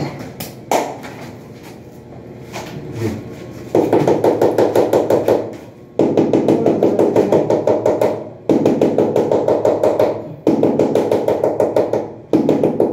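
Repeated bursts of rapid, even tapping on a large wall tile, about ten strikes a second, each burst lasting under two seconds, as the tile is bedded into its adhesive. A few separate knocks come just before the first burst.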